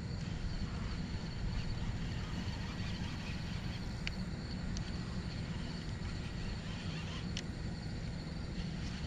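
Steady low rumble of wind buffeting the microphone, with three faint ticks: one about four seconds in, another just under a second later, and a third near the end.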